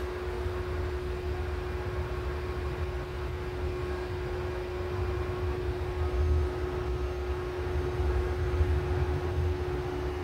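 Light-rail train heard from inside the car while it runs: a steady low rumble with a constant hum over it.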